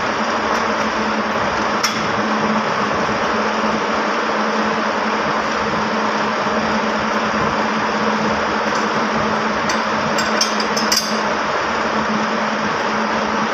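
Powerlooms running: a loud, steady mechanical clatter with a constant hum, with a few sharper clicks, a cluster of them about ten seconds in.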